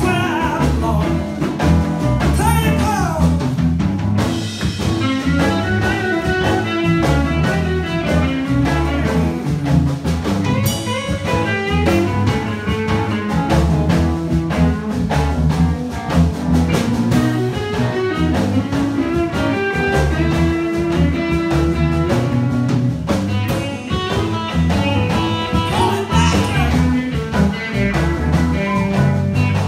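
Live band playing a blues song, with guitar over a steady bass line and beat.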